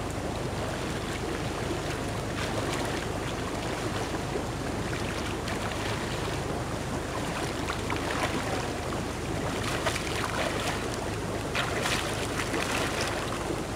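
Water splashing from a swimmer's breaststroke strokes over a steady rushing background. The splashes come about once a second and grow louder in the second half as the swimmer nears.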